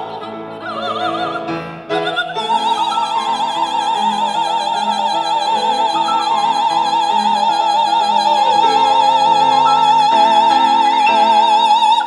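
Operatic singing with orchestral accompaniment, played back through a 1960s National classroom loudspeaker (a 16 cm alnico full-range unit in its large school cabinet). A few short sung phrases give way, about two and a half seconds in, to one long held high note with wide vibrato.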